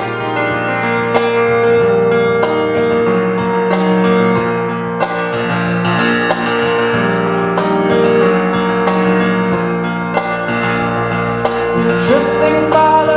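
Instrumental introduction of a song: sustained keyboard chords with guitar, played steadily before the vocals come in.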